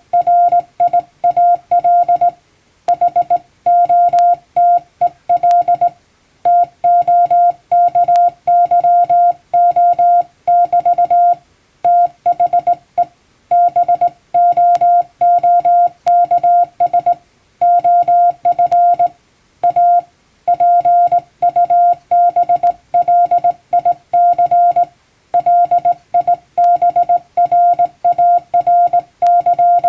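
Hand-keyed Morse code: one steady beeping tone switched on and off in short dots and longer dashes, spelling out plain-language Latin-alphabet text at an even pace. The signal has short gaps between letters and longer pauses between words.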